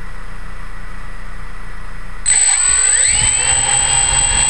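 F550 hexacopter's brushless motors and propellers spinning up about two seconds in: a high steady tone starts suddenly, with a whine that rises and then levels off into a steady idle hum. Before that only a low steady rumble.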